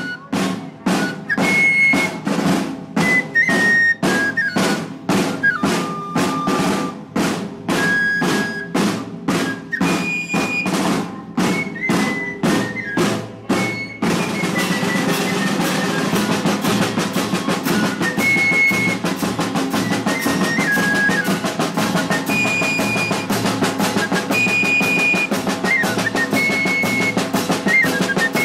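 Procession band's snare and bass drums beating a march, with strong strokes about twice a second and a high wind instrument playing held notes over them. About halfway the sound changes abruptly to a continuous drum roll with the high notes still going.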